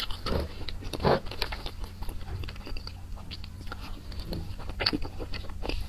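Close-miked eating sounds of soft mango-cream layer cake: wet mouth smacks and chewing, with a few short clicks of a spoon, over a low steady hum.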